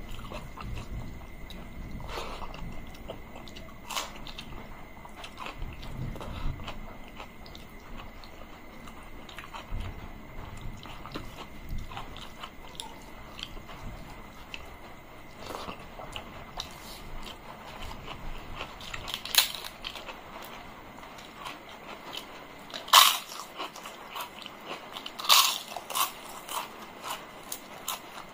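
Close-miked eating: hand-mixing of rice and curry and wet chewing, with small clicking mouth sounds throughout, and three loud, sharp crunches in the second half.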